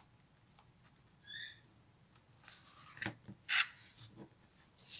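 Scissors cutting a sheet of synthetic leather, with the material being handled: quiet small snips at first, then several short crisp snips and rustles in the second half as the piece is finished and laid down. A brief faint chirp comes about a second in.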